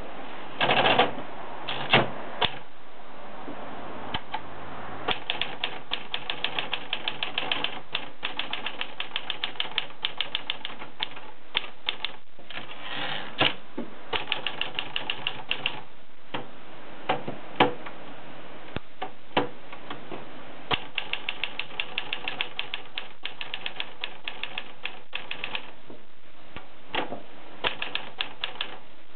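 Olivetti Valentine manual typewriter being typed on: runs of quick key strikes, several a second, broken by short pauses, with a few louder single strikes among them.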